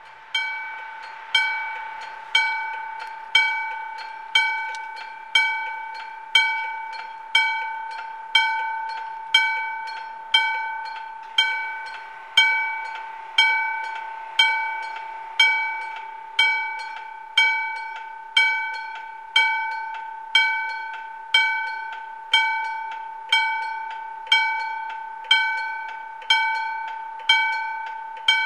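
Old-style mechanical level-crossing warning bell striking about once a second, each stroke ringing out and fading before the next. It starts a moment in and signals that the crossing is closing for an approaching train.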